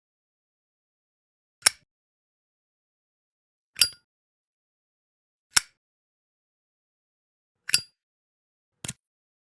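Zippo lighter making sharp metallic clicks with a brief bright ring. There are five of them, about two seconds apart, and the last is a quick double.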